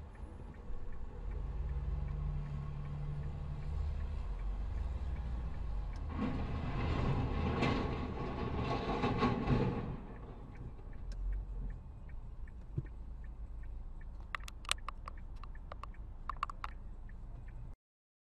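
Dashcam audio of road traffic: the low rumble of a heavy multi-axle military truck crossing the junction, then a loud, rough noise for about four seconds as a dust cloud is thrown up down the road. A few sharp clicks follow, and the sound cuts off suddenly near the end.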